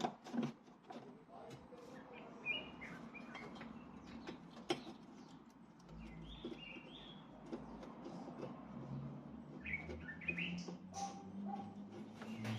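Small birds chirping in the background, with a few sharp clicks.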